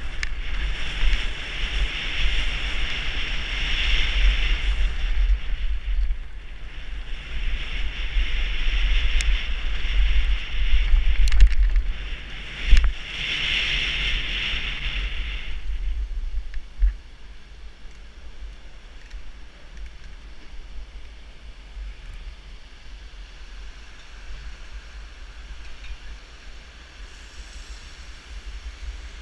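Downhill mountain bike descending a dirt trail: wind buffeting the helmet camera's microphone over the rattle of tyres and bike, with a few sharp knocks over bumps. About sixteen seconds in it drops to quieter, even rolling noise as the bike coasts on pavement.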